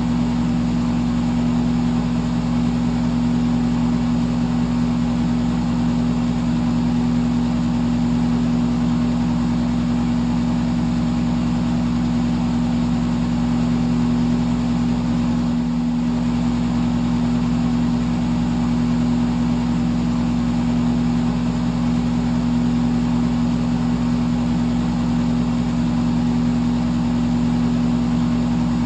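Electric fan running steadily: an even hum from the motor under a broad rush of air from the blades.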